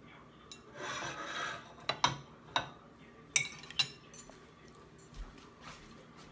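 A metal fork scraping briefly on a china plate about a second in, then several sharp clinks of the fork against the plate and dish over the next two seconds.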